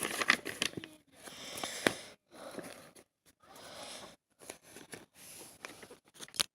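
Crinkling and rustling of a diamond painting canvas and its plastic packaging being handled, in short irregular bursts with a few sharp clicks.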